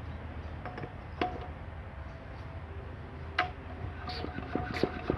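Scattered light metal clicks and taps, a few ringing briefly, with a quicker run of clicks near the end, as a starting handle is handled and fitted to a Wolseley WD8 stationary engine. The engine itself is not running.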